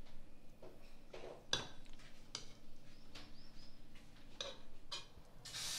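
Steel ladle stirring thick dosa batter in a metal pot, with scattered clicks and scrapes of metal on metal as it knocks the pot's side.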